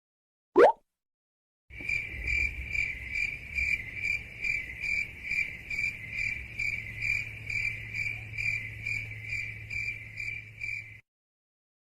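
Crickets-chirping sound effect, the stock meme cue for awkward silence: a high chirp pulsing about two to three times a second over a low hum, cutting off near the end. A short rising swish comes just before it.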